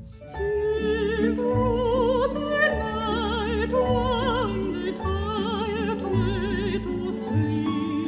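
Operatic soprano singing with wide vibrato over a symphony orchestra, low strings sustaining beneath her. The voice comes in just after the start, over what was strings alone.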